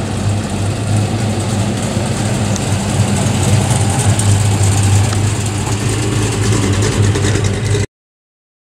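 1956 Chevrolet sedan's engine running steadily at low speed as the car rolls slowly past, loudest midway, then cut off abruptly near the end.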